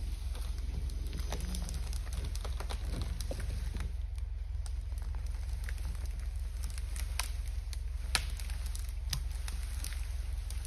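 Douglas fir log dragged through brush and pine-needle litter by a winch cable, twigs and branches crackling and snapping irregularly, with one sharper snap about eight seconds in. A steady low rumble runs underneath.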